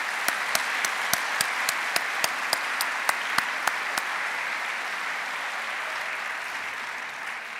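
Audience applauding, with one person's louder hand claps close to the microphone, about three or four a second, for the first four seconds. The applause dies away near the end.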